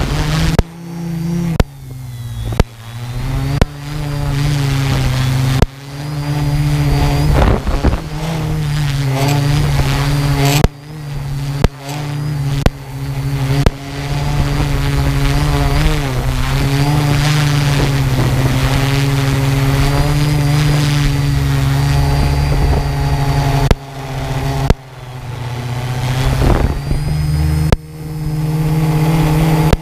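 Quadcopter motors and propellers running with a steady pitched hum and a faint high whine. The level repeatedly drops sharply and creeps back up over a second or two, about a dozen times.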